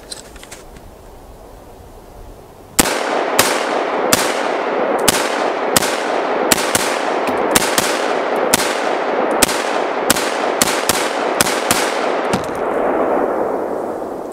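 Smith & Wesson M&P15 AR-15 rifle firing .223 rounds semi-automatically: a fast string of about eighteen shots at an uneven pace of roughly two a second, starting about three seconds in and emptying the magazine. A steady rush of noise fills the gaps between the shots.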